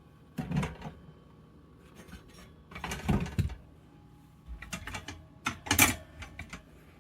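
Clattering and knocking of shelf parts being handled and fitted together, in separate bursts: one about half a second in, a longer one around three seconds, and a cluster of sharp knocks near the end.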